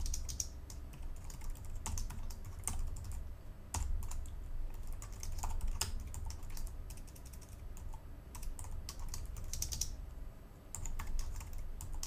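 Typing on a computer keyboard: irregular runs of keystroke clicks with short pauses, over a low steady hum.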